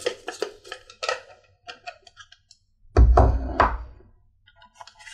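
Plastic boxes and packaging handled on a wooden desk: a run of short clicks and taps in the first second or so, then one heavy thump about three seconds in as something is set down.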